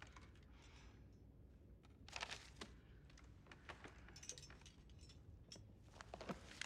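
Faint paper handling: a few short rustles and small clicks of a letter and book pages being handled and turned over a low room hum.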